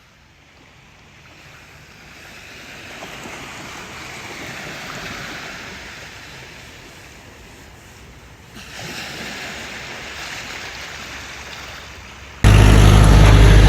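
Sea waves washing in on the shore, swelling and easing as one wave comes in and then a second arrives more suddenly. Near the end it switches abruptly to a much louder, steady low hum.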